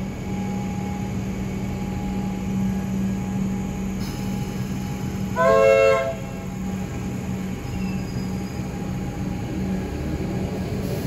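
Comeng electric suburban train running alongside a station platform with a steady low hum and wheel-on-rail rumble. About halfway through, a short, loud horn blast sounds for about half a second.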